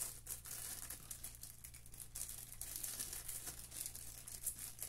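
Small clear plastic parts bag crinkling in quick, irregular crackles as it is handled and pulled open by hand.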